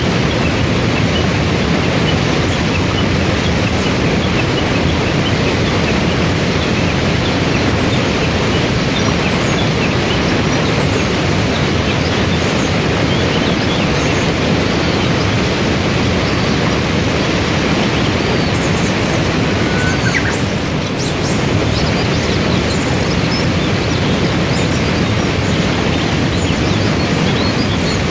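Waterfall and river rapids rushing in a steady, loud wash of water noise, with faint bird chirps scattered through it, more of them in the second half.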